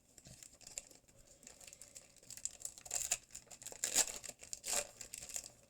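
Foil Pokémon TCG booster pack wrapper crinkling and being torn open, in a string of crackles with louder rips about three, four and nearly five seconds in.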